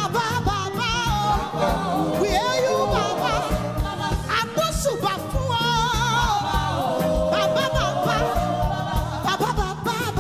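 A woman singing a gospel song with strong vibrato into a microphone, over backing music with a steady beat.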